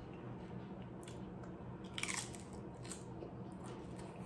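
Close-miked biting and chewing of crunchy loaded shrimp nachos, the tortilla chips cracking in the mouth, with a louder crunch about two seconds in.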